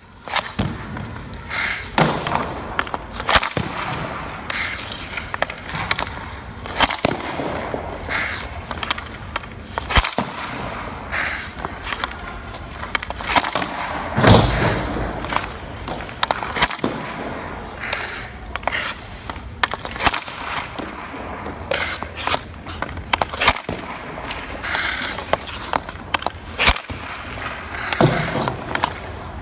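Ice hockey pucks being shot at a goalie: repeated sharp cracks of stick on puck and puck off the goalie's pads every second or two, over the scrape of skate blades on ice. A longer, louder burst of noise comes about halfway through.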